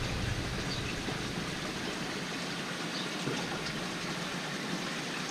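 Steady, even rush of the koi pond's circulating water: filter-return trickling and aeration bubbling.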